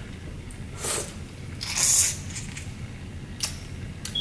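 Close-miked eating: biting into a sauce-dipped boiled jumbo shrimp and chewing, with two louder wet mouth noises about one and two seconds in and a few small clicks near the end.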